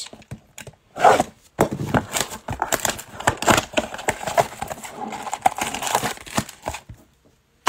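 Crinkling and tearing as a cardboard trading-card blaster box is torn open and its foil card packs are pulled out and rustle in the hand, a dense run of crackles that stops shortly before the end.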